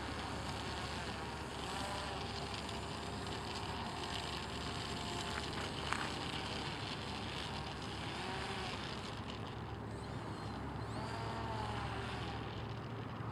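Electric motor of an RC autogyro running as it taxis over rocky ground, its pitch rising and falling a few times with the throttle.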